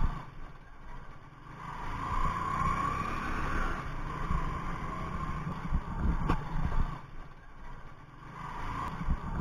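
Small commuter motorcycle's engine running as it is ridden slowly, with a few sharp knocks.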